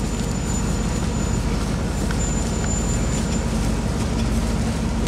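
A tour vehicle's engine running with a steady low rumble, heard from inside the vehicle. A faint high-pitched whine comes in twice over it during the first few seconds.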